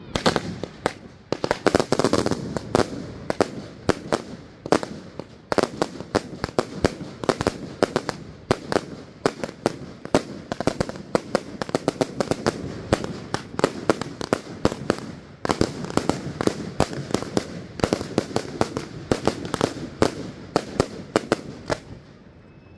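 Fireworks going off on the ground: a fast, irregular run of sharp pops and bangs, many a second, with crackling between them, dying away near the end.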